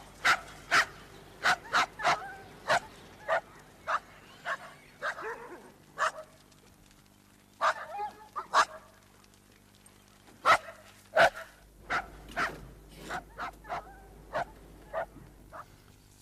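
Dogs barking: about twenty short, sharp barks in irregular bursts, with brief pauses between the bursts.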